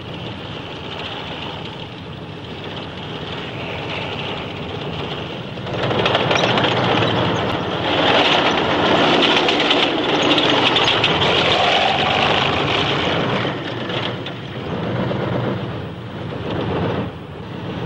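T-34 tank driving: engine running with the steady clatter of its tracks, growing louder about six seconds in.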